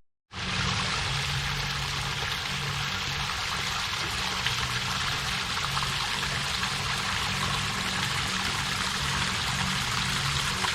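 Waterfall rushing steadily, a constant wash of falling water. The sound cuts out for a moment right at the start, then comes back.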